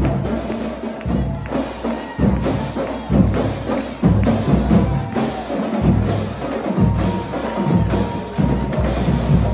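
School drumline playing a marching cadence: heavy bass drum strokes about once a second under quicker sharp drum and rim clicks.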